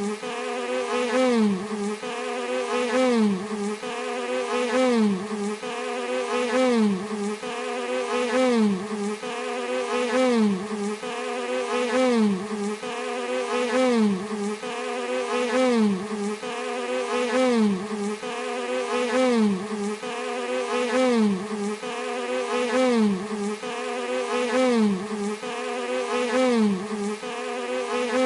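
Bee buzzing continuously, its pitch dipping and rising in an even, repeating cycle about once a second, like a loop.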